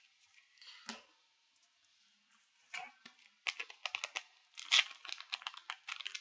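Crinkling and tearing of a foil trading-card booster pack wrapper as it is handled. It starts with a single crackle about a second in and becomes a dense run of rapid crackles from about three seconds in.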